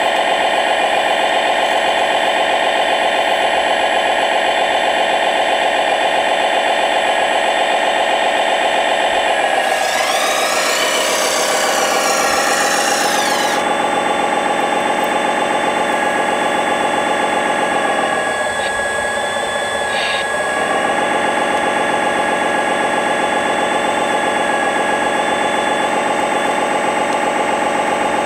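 1/14-scale RC construction machine running, its simulated diesel engine idling steadily. About ten seconds in, a harsh whine and hiss sets in for roughly four seconds, and the engine note shifts briefly around eighteen seconds in.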